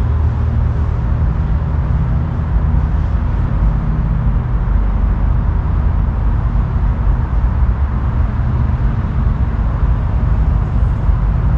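Steady low rumble of background noise, loudest in the bass, with no distinct events.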